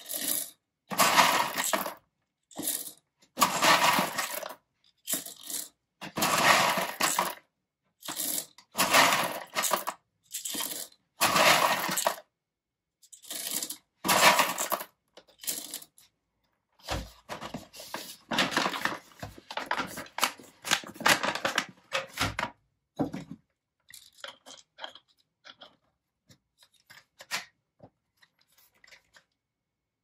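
Whole roasted coffee beans being scooped from a paper bag and tipped into an electric coffee grinder's bowl: a short rattle of beans with each scoop, about once a second, denser and busier for a few seconds past the middle, then only a few faint loose clicks.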